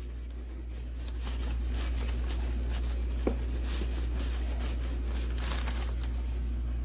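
Cotton rag rubbing over a hand-carved wooden box in repeated strokes, with cloth rustling, wiping off excess oily Restor-A-Finish; a steady low hum runs underneath.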